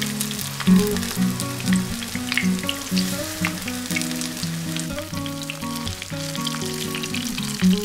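Pieces of salted mackerel, coated in potato starch, shallow-frying in about a centimetre of hot oil in a frying pan, sizzling with a steady patter of small pops. Soft background music with held low notes plays under it.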